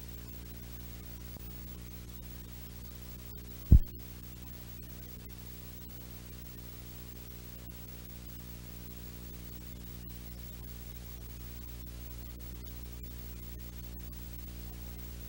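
Steady low electrical hum on the recording, with one sudden, heavy low thump about four seconds in.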